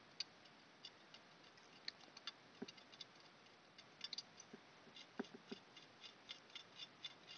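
Faint, irregular ticking and clicking of a tool tip picking and scraping at crusty salt corrosion on a circuit board. The clicks come in quick clusters, several a second, most densely in the second half.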